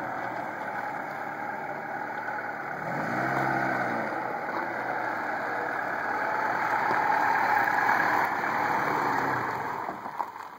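Classic Lada Zhiguli sedan's engine revving as the car spins its wheels on loose gravel, over a steady rush of tyre and gravel noise. The engine surges up and back down about three seconds in. The sound fades near the end as the car comes to a stop.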